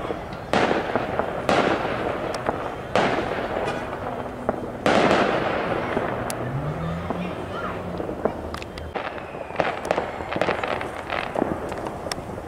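Fireworks bursting: four loud booms in the first five seconds, each trailing off in a rumble, then a run of sharp crackling pops near the end.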